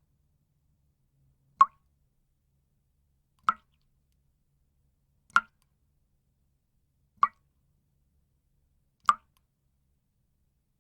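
Water drops falling one at a time with a clear plop, five evenly spaced drops about two seconds apart.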